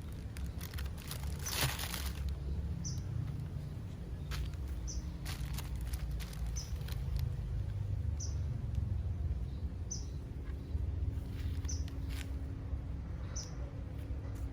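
Plastic shipping packaging crinkling now and then as it is handled, over a steady low rumble. A short high chirp repeats about every two seconds, like a small bird calling.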